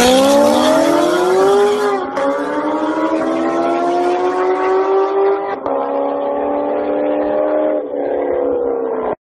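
Lamborghini Huracán's V10 at full throttle accelerating away. The engine note climbs steadily through the gears with quick upshifts about two, five and a half, and eight seconds in, and the sound grows more distant.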